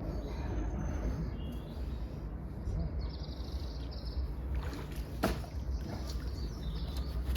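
Outdoor ambience: a steady low rumble with faint birds chirping, and a couple of sharp knocks about five seconds in.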